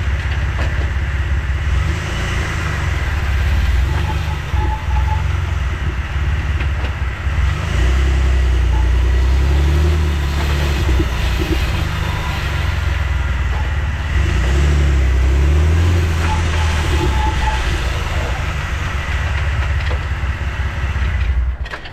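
Jeep Wrangler JK running, its engine note rising and easing twice as it pulls. A few sharp knocks come right at the end.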